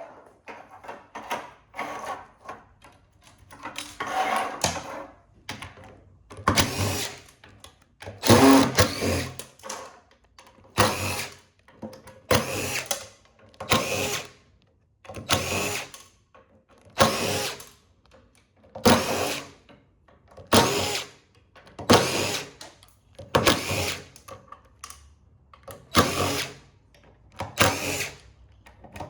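Power drill-driver run in repeated short bursts, about one every one and a half to two seconds, backing screws out of printer parts; the first few seconds are quieter, irregular handling.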